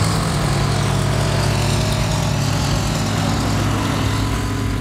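Aero Spacelines Super Guppy's four turboprop engines running steadily as it rolls on the runway: an even, low drone under a broad rushing noise.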